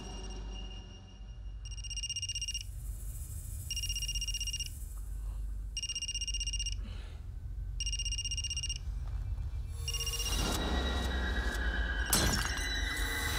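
Mobile phone ringing: a warbling electronic ring about a second long, repeated every two seconds, over a low drone. Near the end a louder swell builds to a sharp crash.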